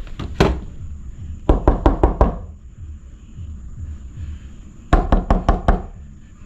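Sharp knocks on wooden boards: a single knock, then two quick runs of about five knocks each, a few seconds apart.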